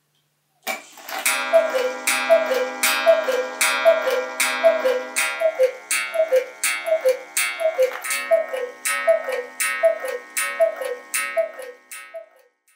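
Black Forest cuckoo clock with an 8-day movement calling the hour. Its bellows cuckoo sounds a falling two-note call over and over, a little more than once a second, and each call comes with a ringing strike of the clock's chime.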